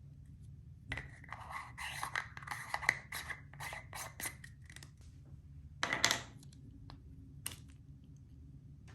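Typing on a Pixel Space Capsule 65 custom mechanical keyboard with lubed Zaku II tactile switches in a polycarbonate plate: a quick run of clacky keypresses with a faint ring under them, then a short dense burst of key noise about six seconds in and a single keypress near the end.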